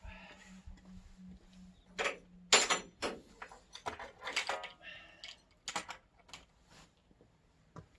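A series of sharp metallic clanks and knocks, the loudest about two and a half seconds in, over a steady low hum that stops at about the same moment.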